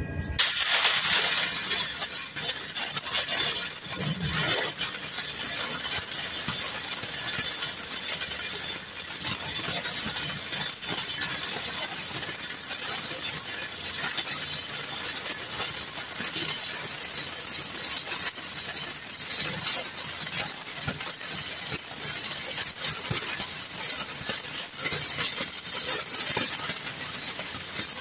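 Self-shielded flux-cored arc welding with 5/64-inch Lincoln NR-305 wire: the arc strikes right at the start and then burns steadily with a dense crackle and spatter.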